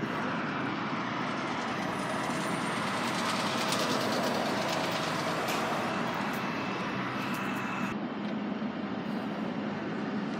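Steady outdoor traffic noise with no nearby engine standing out; the higher hiss drops away about eight seconds in.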